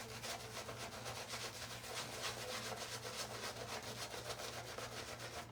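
Shaving brush swirling soap lather on a stubbled face: a faint bristly rubbing in quick, regular strokes.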